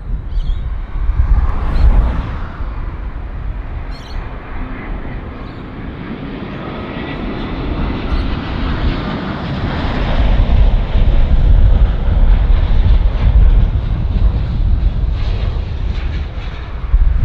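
Jet airliner's engines passing close: a broad rushing roar with deep rumble that builds to its loudest about ten seconds in, holds, then eases a little near the end.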